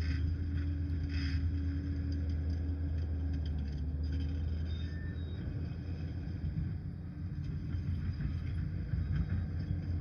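Diesel engine of a Liebherr PR 746 crawler dozer running, a steady low drone that turns rougher and more uneven about halfway through.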